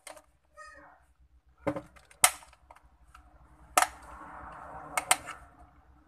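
Sharp plastic clicks and snaps from a Rexus F26 gaming headset's clip-fastened ear-cup housing as it is pried and worked apart with a thin metal tool, about five clicks with the loudest about two seconds in. Between the later clicks the tool scrapes against the plastic for a second or so.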